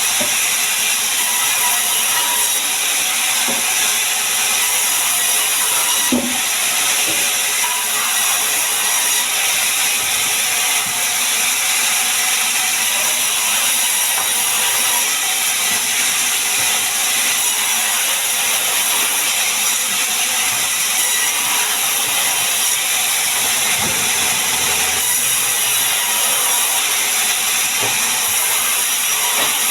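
Sawmill saw running and cutting sengon (albizia) wood: a steady, loud, high-pitched mechanical noise with a few knocks.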